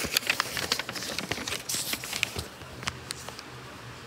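Pages of a paperback book being turned and handled: a run of quick paper crackles and rustles over the first two seconds or so, thinning to a few soft ticks.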